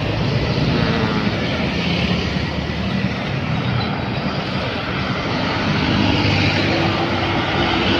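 Steady stream of road traffic passing close by: engines and tyres of cars, pickups and vans going past, swelling as each vehicle passes.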